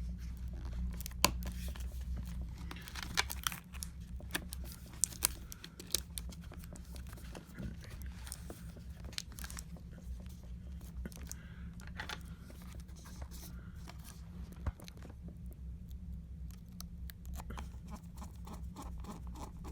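Scattered light clicks, taps and crinkling of plastic as a replacement MacBook Pro battery is handled and fitted into the laptop's case, over a steady low hum.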